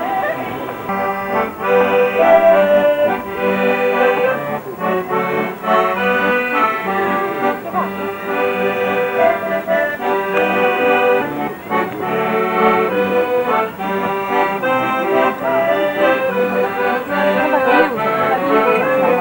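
Accordion playing a folk dance tune: a melody of held notes over a regular bass-and-chord accompaniment.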